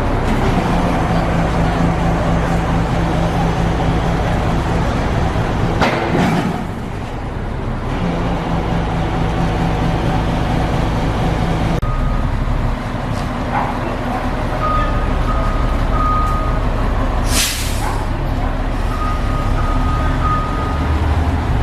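Truck crane's diesel engine running steadily, with a short loud hiss of released air about three-quarters of the way through. Runs of short high beeps sound twice in the second half.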